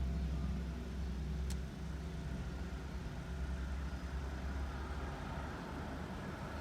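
A motor vehicle engine idling: a steady low rumble, with a single faint click about a second and a half in.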